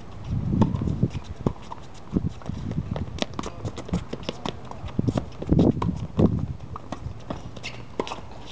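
Tennis rally on a hard court: an irregular run of sharp pops from racquets hitting the ball and the ball bouncing, with a few louder dull low thuds in between.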